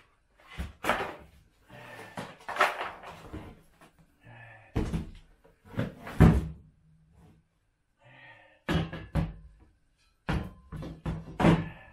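Knocks and thunks from handling a plastic dump-cart tub and its metal frame, mixed with cardboard packing rustling: the hollow poly tub is flipped and bumped, and the frame is set down on it. It comes as a string of separate bumps with short pauses, the loudest about six seconds in.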